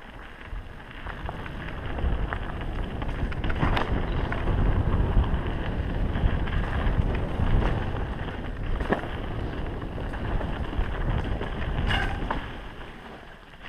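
Wind buffeting the helmet camera's microphone as a mountain bike rolls fast down a dirt singletrack, with tyre rumble and a few sharp clacks from the bike over bumps. It builds about two seconds in and eases near the end.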